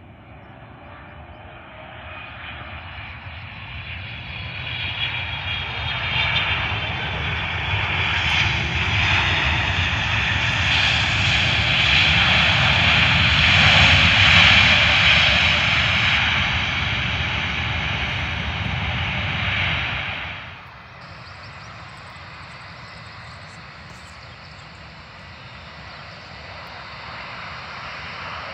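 Jet engine noise of a twin-engine wide-body airliner landing. It swells steadily to its loudest about halfway through as the jet rolls out on the runway, then eases. About 20 seconds in the sound cuts suddenly to quieter, steady jet noise from the next airliner on approach, which grows a little near the end.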